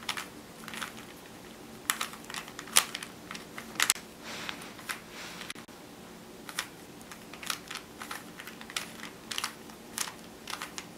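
A 3x3 Rubik's Cube being twisted by hand: irregular plastic clicks and short scraping turns, about one or two a second.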